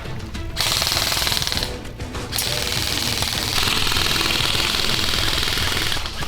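Airsoft guns firing long full-auto bursts, a fast, even rattle with short breaks near the start and about two seconds in, over background music.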